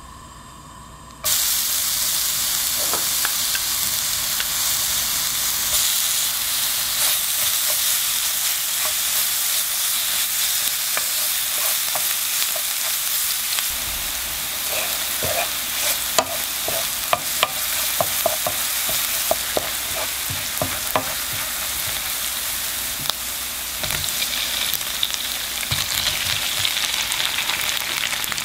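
Minced garlic frying in oil in a nonstick pan: a steady sizzling hiss that starts suddenly about a second in. About halfway through, a spatula stirs it with a quick run of scrapes and taps against the pan.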